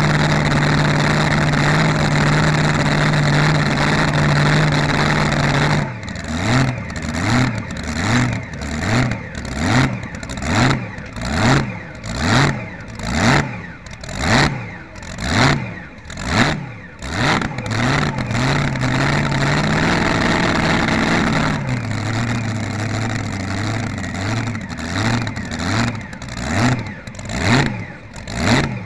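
Fuel-injected V8 engine of a tractor-pulling machine, heard close from onboard, holding a fast steady idle and then blipped over and over, about one quick rev every three-quarters of a second. About two-thirds of the way through it settles to a lower idle before the rhythmic blips start again.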